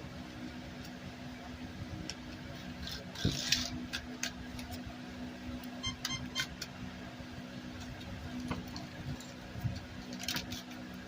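Hands working on a lawnmower's recoil pull-starter: scattered clicks, rattles and rustles of the parts being handled, with a cluster of them about three to four seconds in and another near the end, over a steady low hum.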